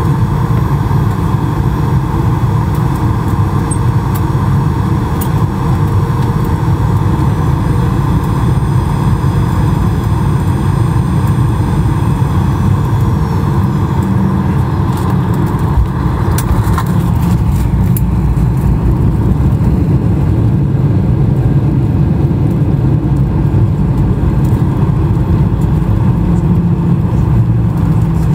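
Cabin sound beside the wing of a Boeing 737-800 with CFM56 engines during landing and runway rollout: a steady roar of engine and rumble. The engines' high whine falls in pitch about halfway through, followed by a few short clicks.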